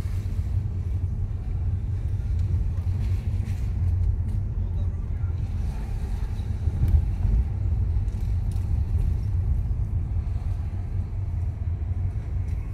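Car driving slowly along a city street, heard from inside the cabin: a steady low rumble of engine and road noise.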